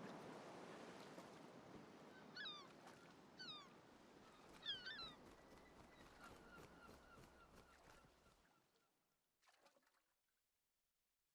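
Faint animal or bird calls in three short bursts, a second or so apart, over a soft background hiss that fades away into silence.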